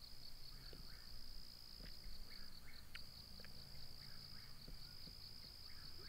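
Crickets chirping, a faint, steady, high pulsing trill, with a few faint short chirps scattered through it.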